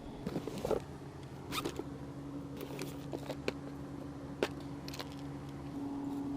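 Scattered sharp clicks and short rustling handling noises over a steady low hum.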